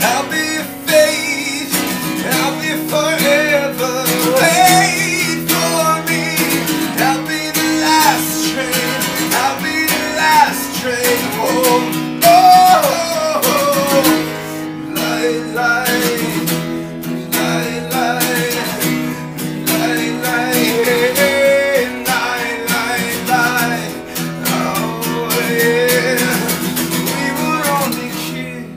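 Acoustic guitar strummed steadily in a live solo performance, with a man's singing voice rising and falling over the chords.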